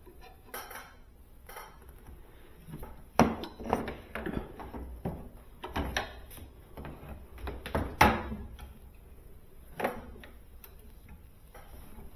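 A wire stripper's 16-gauge slot clicking and scraping as it is worked around a refrigerator capillary tube to score it. Scattered small metallic clicks, with sharper ones about three seconds in, eight seconds in and ten seconds in.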